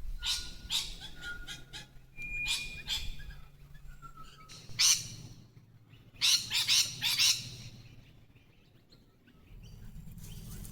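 A flock of birds calling excitedly, in clusters of harsh, screechy calls mixed with a few short whistled notes. The loudest run comes about six to seven seconds in, then the calling dies down briefly near the end.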